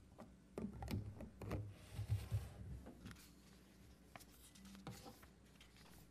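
Paper rustling and light knocks of handling on a tabletop near a microphone: several short clicks and dull thumps in the first half, with a brief rustle in the middle, then a few faint taps.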